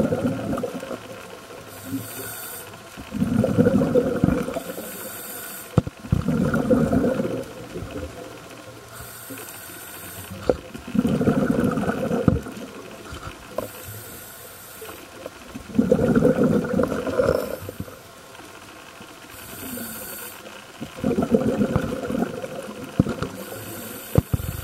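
A diver breathing underwater through a demand regulator: a short, high hiss on each inhalation, then a longer rush of exhaled bubbles. The cycle repeats about every five seconds, about six breaths in all.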